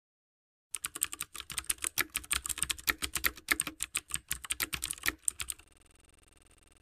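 Typing sound effect: rapid key clicks for about five seconds, starting under a second in and stopping abruptly, matching on-screen text being typed out letter by letter.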